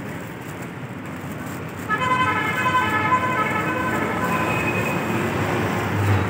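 Road traffic noise, with a steady pitched vehicle warning signal sounding for about three seconds from about two seconds in, and a brief low thump near the end.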